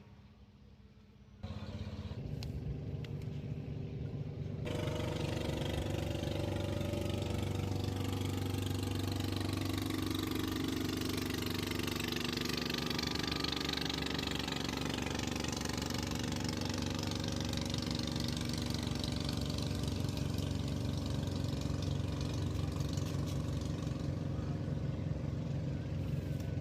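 A small engine starts about a second in, picks up a few seconds later, then runs steadily.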